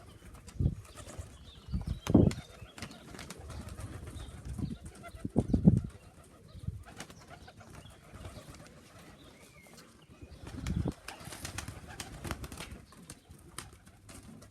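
Domestic pigeons cooing, a few low coos at intervals over a faint outdoor background.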